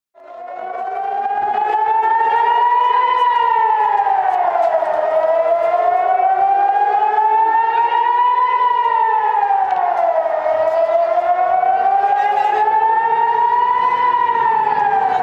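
Civil-defence air-raid siren sounding a rocket warning: an up-and-down wail that climbs slowly and falls more quickly, going round about three times. It starts suddenly at the beginning.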